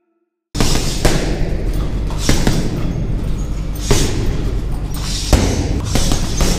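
Boxing gloves thudding into a hanging heavy punching bag in a large gym: a run of hard punches about a second apart, starting about half a second in.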